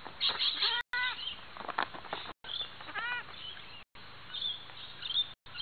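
Young goats bleating: two short bleats about a second and three seconds in, with the knocks of hooves landing on a trampoline mat.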